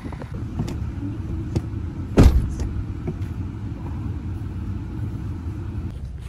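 A vehicle engine running with a steady low rumble, with one loud thump about two seconds in.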